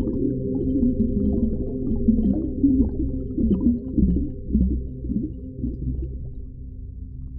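Underwater ocean ambience: a steady, muffled low rumble with small gurgles and pops, and a run of short swooping low tones about halfway through.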